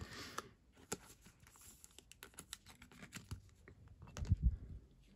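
Baseball trading cards handled by hand: light scattered clicks and flicks of card stock as the cards are slid apart and shuffled, with a soft low bump about four seconds in as a card is set down.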